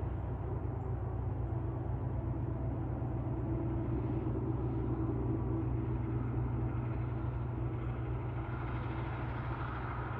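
Freight train running past the crossing with a steady low rumble.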